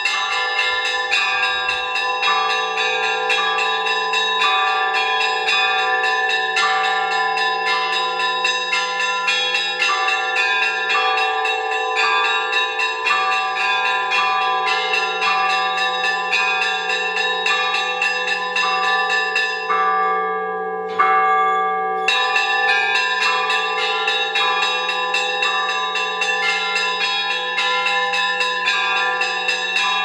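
Several church bells in a monastery bell tower, hand-rung by a monk in a rapid, continuous peal of overlapping tones, calling the monks to Vespers. The ringing breaks off briefly about two-thirds of the way through, then resumes with a loud stroke.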